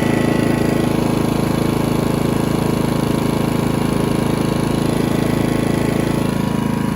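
ERAYAK 2400-watt inverter generator's small four-stroke engine running at a steady speed in eco mode, under the light load of a battery charger.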